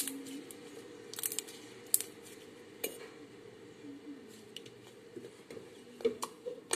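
Fluffy slime being squeezed and pressed by hand on a wooden table, giving irregular sharp little pops and crackles with soft squishes between them.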